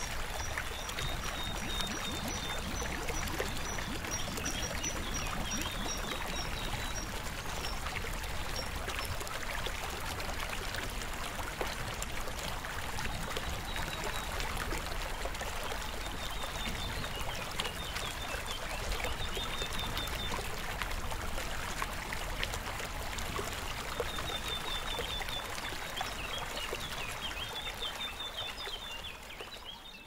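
Stream water trickling steadily, with small songbirds singing series of high repeated notes and trills over it. The sound fades out near the end.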